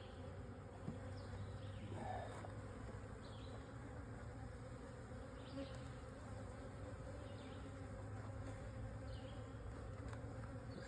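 Honeybees buzzing steadily around an open nuc hive, a continuous low drone, with a few faint clicks scattered through it.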